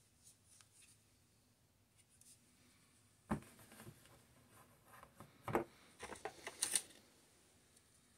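Unboxing handling sounds: a sharp knock about three seconds in as something is set down, then a run of clicks, knocks and rustles from a power adapter and cables being handled in an open cardboard box, loudest between five and seven seconds in.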